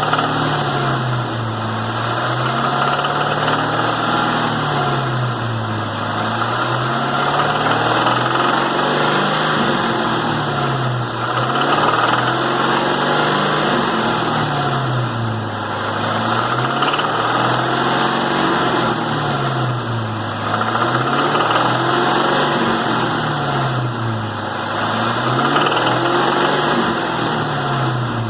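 2001 Mustang Cobra's 4.6-litre four-valve DOHC V8 engine, its speed rising and falling over and over every few seconds, with a knocking noise that shows on light load.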